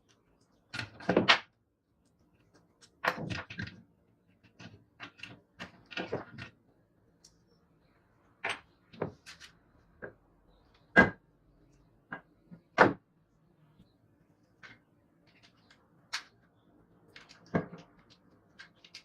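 Irregular knocks, clicks and clinks from hand tools and parts being handled while working on an old children's scooter, a couple of dozen short hits with the sharpest ones near the middle.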